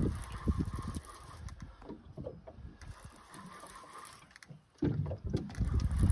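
Wind gusting on the microphone over small waves lapping against the hull of a small open boat. The gusts are strongest at the start and again in the last second or so, with a few light clicks between.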